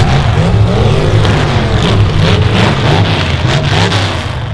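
Demolition derby cars' engines revving hard, several at once, their pitch climbing and falling over and over, with short metal knocks as the battered cars hit and push each other.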